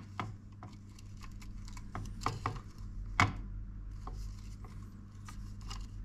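Hands rustling and tapping as thin hookup wires are pressed flat and arranged on the plastic base of an opened digital kitchen scale: soft irregular rustles and light clicks, the sharpest about three seconds in, over a low steady hum.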